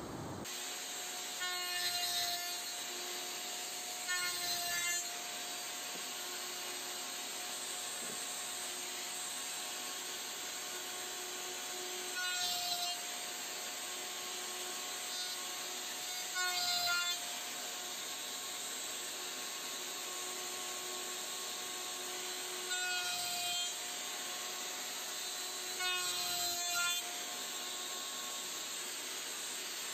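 A table-mounted router runs with a steady whine while its straight bit cuts box-joint slots in an oak workpiece. Six times the cut bites in for about a second, getting louder as the tone sags under load.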